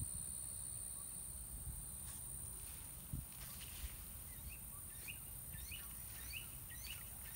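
Garden ambience: a steady high-pitched insect drone, and from about four seconds in a bird giving a quick series of short rising chirps. A few soft rustles and a low rumble underneath.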